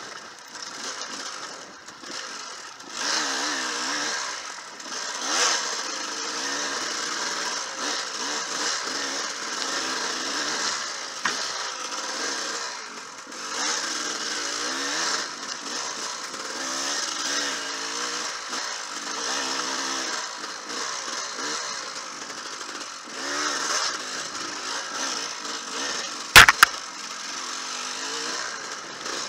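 Dirt bike engine heard from the rider's helmet, revving up and down with the throttle as it picks its way along a rough woods trail, with wind and rattling over it. A couple of sharp knocks stand out near the end.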